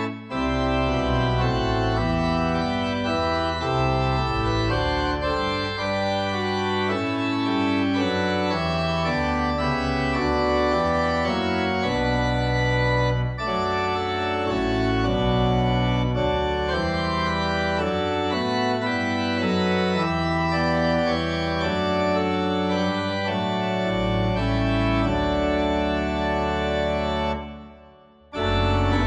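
Organ playing a hymn in slow, held chords, with a brief pause near the end before the next verse begins.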